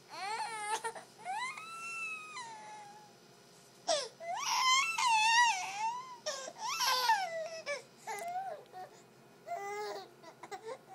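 Baby boy crying in a run of high, wavering wails, several long ones broken by short pauses and then shorter, choppier cries near the end; he is upset at having his pacifier taken away.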